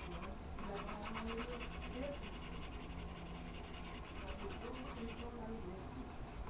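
Pencil scratching on paper in quick repeated shading strokes, easing off about five seconds in, with faint voices in the background.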